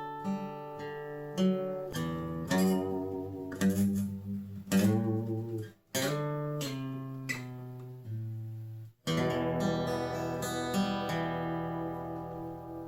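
Washburn WD11SCE acoustic-electric guitar played, picked notes and strummed chords. There are two short breaks, about six and nine seconds in, and then a last chord is left ringing and slowly fades.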